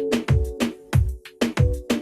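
Electronic background music with a steady deep kick-drum beat, about one and a half beats a second, under held synth chords.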